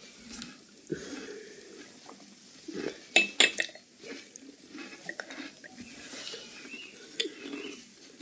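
Clinking of a glass of tea being set down and handled: a quick run of sharp clinks about three seconds in and a single clink near the end, over low room murmur.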